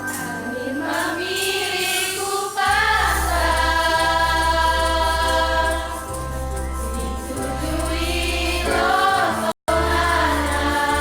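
A choir singing with sustained keyboard accompaniment and bass, voices sliding between notes, with a brief dropout of all sound about nine and a half seconds in.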